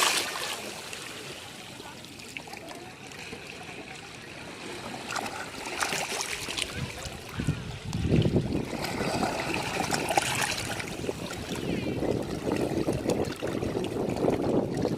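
Ocean waves washing on a beach: a low, steady rush of water, quieter at first, with a louder surge of incoming surf building about halfway through.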